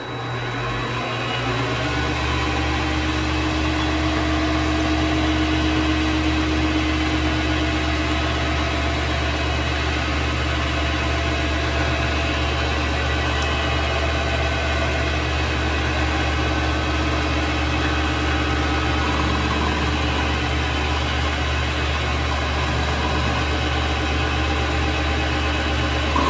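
Vevor MX 400 mini metal lathe starting up: its motor and spindle spin up over the first couple of seconds, then run steadily.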